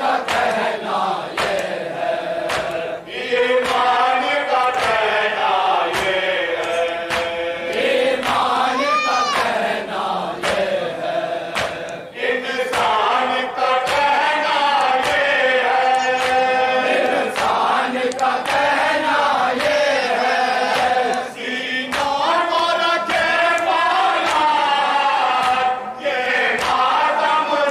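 A group of men reciting a Shia noha (mourning lament) in chorus through a microphone and loudspeaker, a lead voice with others joining, sung in a chant-like melody. Sharp beats recur about once or twice a second, keeping time with the recitation, the matam (chest-beating) of mourners.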